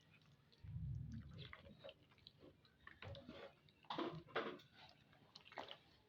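Faint kitchen handling sounds: a low bump about half a second in, then scattered clicks and scrapes of utensils and cookware, loudest near the middle.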